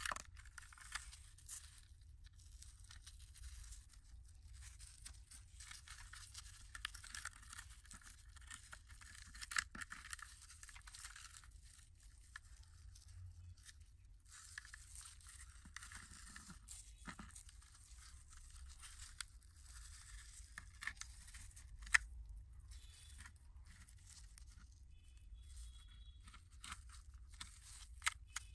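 Rubber-gloved hands handling a rusty diecast model car on a wooden table: the gloves rustle and scrape against the car's metal body in irregular bursts, with small clicks and taps from its loose parts and one sharper tap about two-thirds of the way through.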